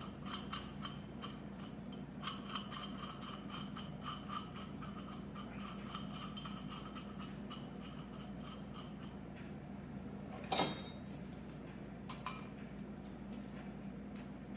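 Small steel parts clinking and ticking as a bearing, lock washer and nut are fitted and threaded onto a half-inch bolt, with one louder metallic clank about ten and a half seconds in and a smaller one near twelve seconds, over a steady low hum.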